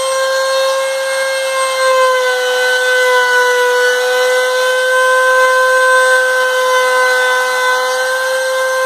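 Makita router on a homemade CNC router running with a steady high-pitched whine as its bit cuts a letter out of a wooden board.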